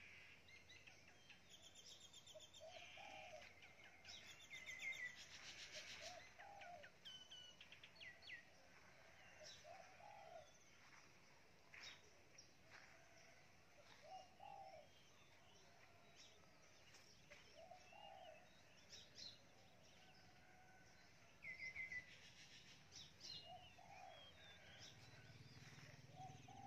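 Faint birdsong: a dove cooing over and over, a call every two to three seconds, with higher chirps and trills from other small birds in between.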